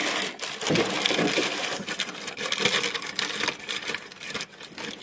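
Handling noise: rustling and light irregular clicks and knocks as a small battery-powered fuel transfer pump is wiped clean and fitted back into its holder.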